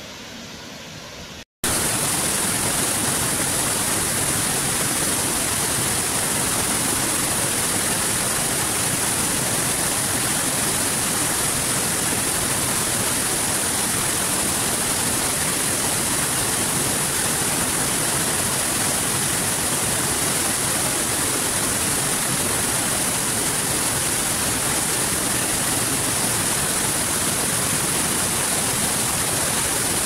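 Water rushing steadily: a small cascade pouring over boulders into a rock pool, a loud, even splashing rush with a strong hiss. About a second and a half in, a quieter waterfall rush cuts off for an instant and the louder cascade comes in.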